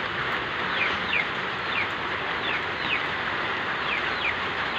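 Steady rain, a continuous hiss of heavy rainfall, with a bird giving short falling chirps again and again through it.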